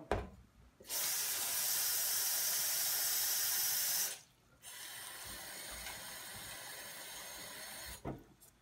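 Kitchen faucet running water into a glass blender jar of soaked chiles. It runs strongly for about three seconds, stops briefly, then runs more gently until shortly before the end.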